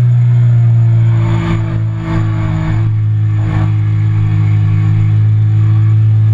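Triumph Speed Triple 1050's three-cylinder engine running at a steady note, heard from a camera on the bike at speed with wind noise over it; the engine note dips briefly about two seconds in.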